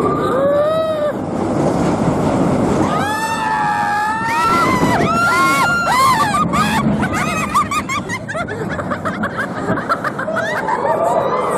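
Several people screaming and whooping, long held, wavering shrieks packed together in the middle and shorter yelps and laughs after, over a steady rushing rumble: riders on a roller coaster.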